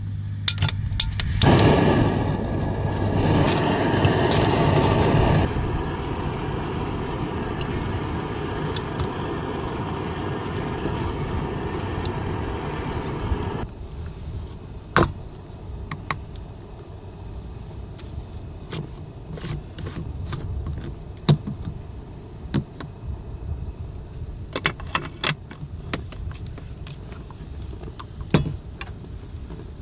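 Electric blender blending fruit juice: loud at first, then running steadier and lower, and cutting off suddenly about fourteen seconds in. Scattered light clicks and knocks follow.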